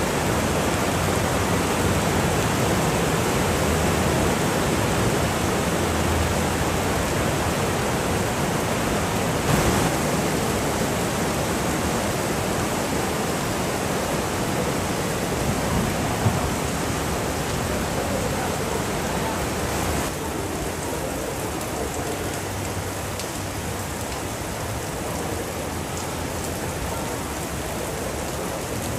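Rain falling steadily, a dense even hiss that eases slightly about twenty seconds in.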